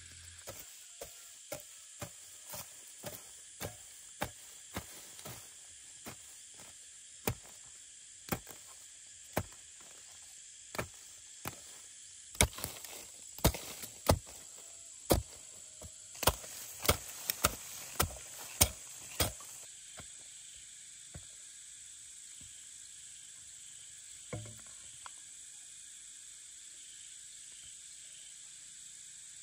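A hoe chopping into dry hillside soil, strike after strike about once a second, the later blows louder and coming faster, then the chopping stops; one faint knock follows later.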